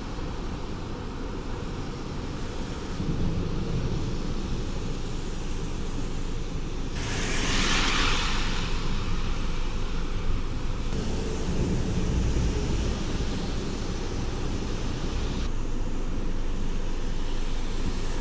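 Outdoor city ambience: steady traffic noise with a low rumble, and a louder rushing hiss from about seven to ten seconds in. The background changes abruptly a few times.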